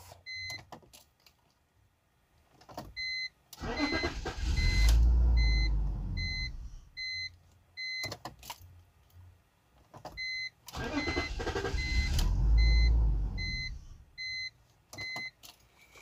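BMW 325xi's straight-six engine cranked twice; each time it catches, runs rough for a second or two and dies. A warning chime beeps about twice a second throughout, with a few clicks. The stalling is a sign of fuel starvation, which the owner puts down to a weak in-tank fuel pump giving low fuel pressure.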